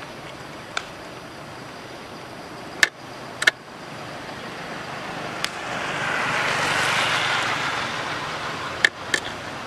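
A vehicle passing: a rush of noise swells from about halfway through and fades near the end, over a steady background hiss. A few short sharp clicks sound through it.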